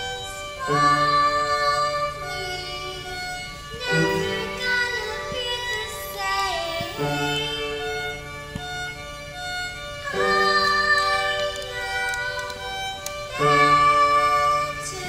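Live piano, violin and voice: slow piano chords, a new one struck about every three seconds, under a violin melody, with a girl singing.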